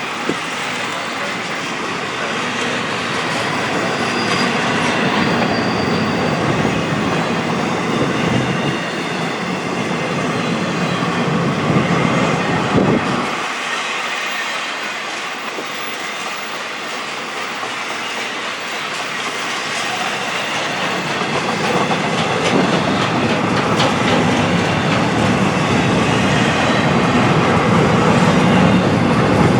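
BNSF freight train rolling past, a continuous noise of steel wheels on rail that swells louder toward the end.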